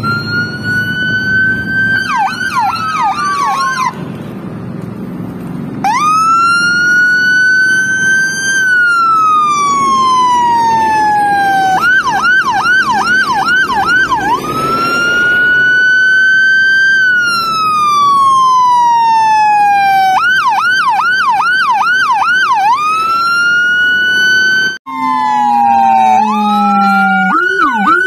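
Whelen 295SDA1 dual-tone electronic siren sounding through SA314 and LoPro speakers, switching between a wail (a slow rise followed by a long falling glide) and a yelp (rapid up-and-down sweeps), with two tones at times sounding together. A brief cut in the tone comes near the end, followed by a lower falling tone before the yelp returns.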